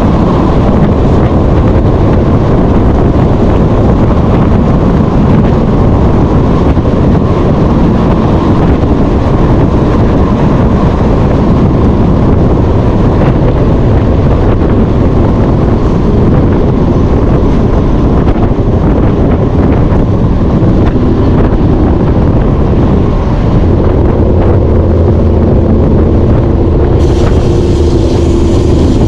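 Semi truck on the road: a loud, steady engine drone mixed with heavy wind and road noise. A steadier engine note comes through in the last few seconds.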